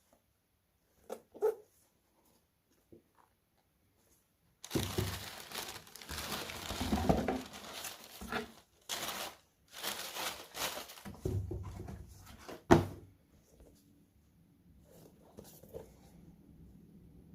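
Packaging being handled during a shoe unboxing: paper and cardboard rustling and crinkling in a run of bursts lasting about eight seconds, with a couple of light knocks before it and a sharp knock near its end.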